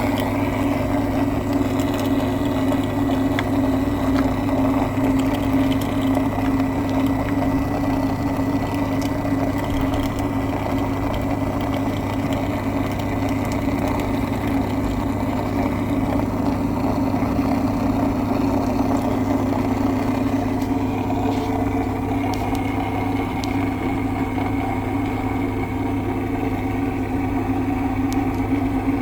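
Washing machine running with a steady electric hum.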